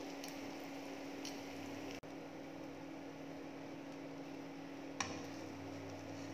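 A steady low electrical hum under a faint hiss from tortilla wraps toasting in a nonstick frying pan on a glass-top hob. A single sharp click comes about five seconds in as the spatula and fingers handle the wraps against the pan.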